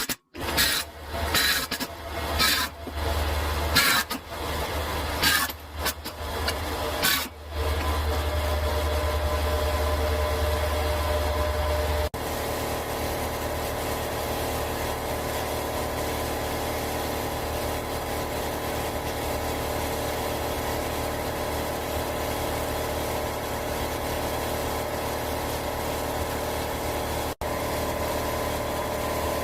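Car engine running at idle: uneven with several loud bursts in the first few seconds, then steady.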